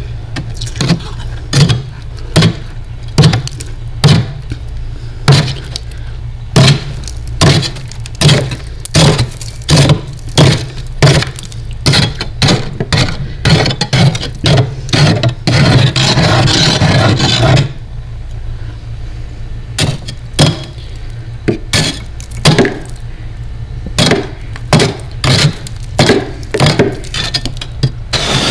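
Metal spoon scraping and chipping built-up frost off a freezer's back wall in short strokes, one or two a second, with one longer unbroken scrape of a couple of seconds about halfway through, over a steady low hum.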